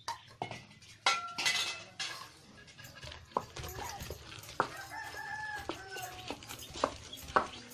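Sharp knocks and crunches from a stone aattukal (traditional stone wet grinder) as its cylindrical stone is turned over coconut pieces and tomato. A chicken calls twice in the background, about a second in and again around five seconds in.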